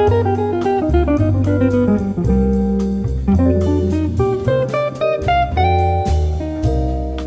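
Instrumental music: a plucked guitar playing a melody of short notes over held bass notes that change every second or so, with light percussion.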